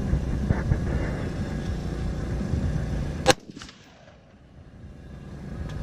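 A single rifle shot, sharp and loud, about three seconds in, over a steady low rumble; right after the shot the sound drops away abruptly and slowly comes back.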